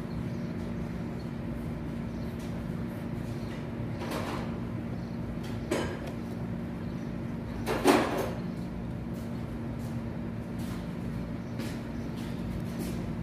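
Steady low workshop hum with a few short knocks and clicks of tools on metal. The loudest knock comes about eight seconds in and a lighter one about two seconds before it.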